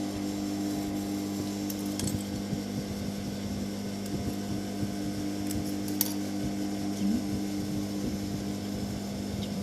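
An industrial high-speed sewing machine's motor hums steadily, with a few faint clicks.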